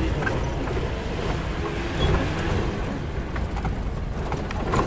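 A car driving on a rough dirt road, heard from inside the cabin: a steady rumble of engine and tyres with a few faint knocks and rattles.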